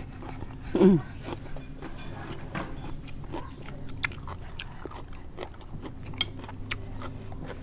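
Close-up eating sounds: chewing with scattered sharp crunches of crisp food. There is a short falling vocal sound about a second in.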